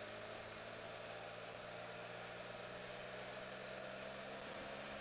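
2014 Can-Am Spyder RT's three-cylinder engine running at a steady low speed, a constant even hum while the three-wheeler rolls slowly.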